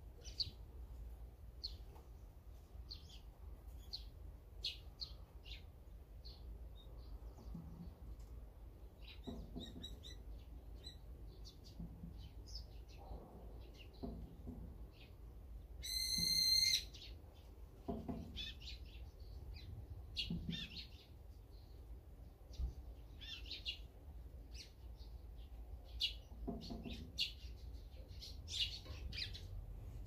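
Small wild songbirds chirping in many short, scattered calls, with one louder, longer call about halfway through.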